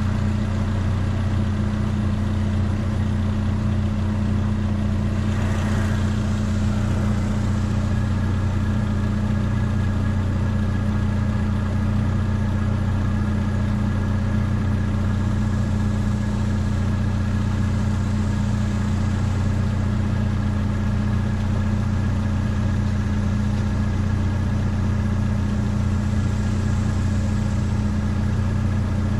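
Vehicle engine idling with a steady low hum, with a brief noise about six seconds in.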